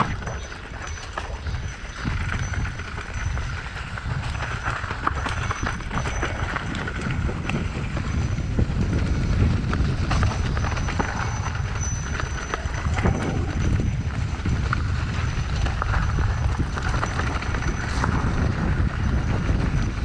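Mountain bike descending a dirt trail: tyres bumping over the ground with a constant clatter of quick knocks from the bike, over a steady low rumble.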